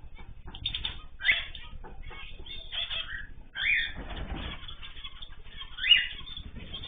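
Ornamental cage birds in an aviary chirping and calling, with three louder sharp calls (about a second in, near the middle and near the end) over many short clicks.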